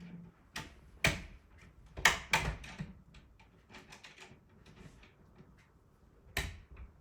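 Sharp metallic clicks and knocks from a locksmith's tools working inside the lock of a door whose latch has jammed shut, with smaller ticks between them. The loudest knocks come about one and two seconds in and again near the end.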